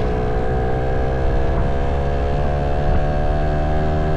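Motorcycle engine running at a steady speed while riding, with a steady engine note over a low rumble of road and wind noise.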